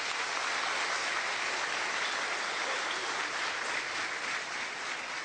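Large seated audience applauding, a dense steady clapping that eases off near the end.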